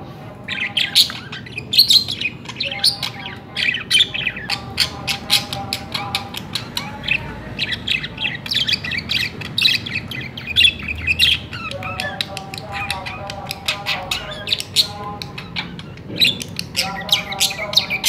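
Budgerigars chattering: a fast, unbroken run of clicks and chirps, with stretches of lower warbling notes coming and going every few seconds.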